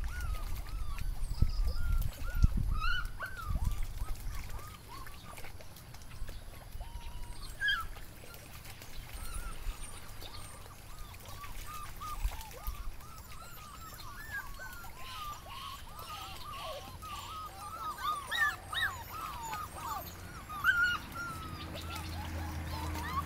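A litter of puppies squeaking and whimpering, many short high yips coming thick and fast, with low buffeting rumbles in the first few seconds.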